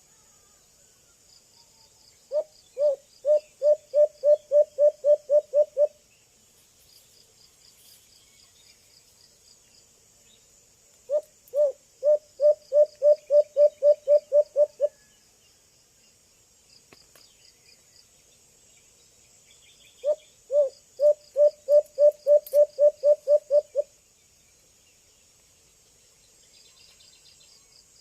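Young white-eared brown dove calling: three bouts of low hooting notes, each a quick series of about a dozen hoots over three to four seconds, the first notes spaced wider and the rest coming faster. It is the call trappers use to draw other doves in. Insects trill steadily in the background.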